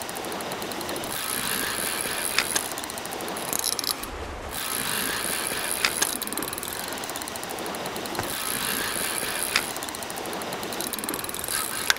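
Spinning reel cranked steadily against the pull of a hooked red sea bream, its gears giving a continuous mechanical whirr with a few light clicks.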